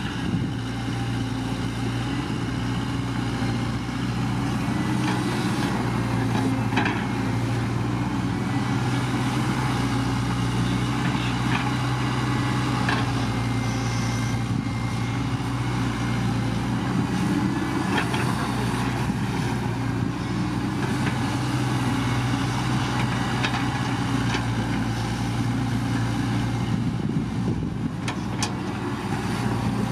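Diesel engine of heavy earth-moving machinery running steadily at a constant pitch, with a few sharp knocks scattered through.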